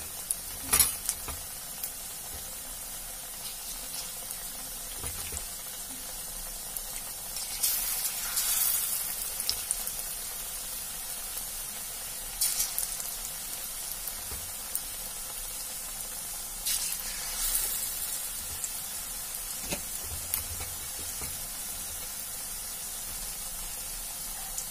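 Besan-battered potato sticks frying in hot mustard oil in a wok: a steady high sizzle that swells louder several times as more battered pieces are dropped into the oil.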